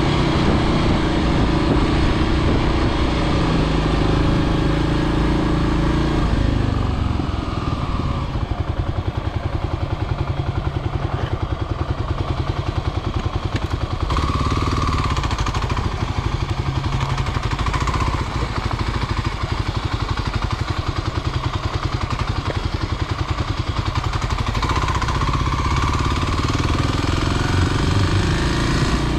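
Kawasaki KLX300's single-cylinder four-stroke engine running as the bike is ridden. It is steady at road speed for the first several seconds, then drops to a slow, even pulsing at low revs while the bike slows to turn around, and picks up again about halfway in and near the end.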